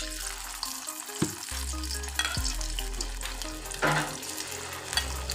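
Batter-coated potato peels deep-frying in hot oil in a metal kadai, a steady sizzling and bubbling. Background music with low bass notes plays under it.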